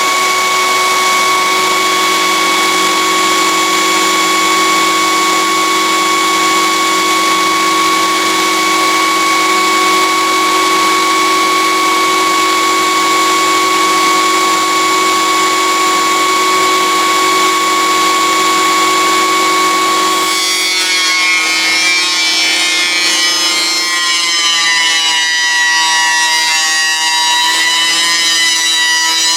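Cutech 6-inch jointer planer with a helical carbide-insert cutter head running with a steady high whine. About two-thirds through the sound changes to several wavering tones, as when a board is fed through and the cutter head takes it under load.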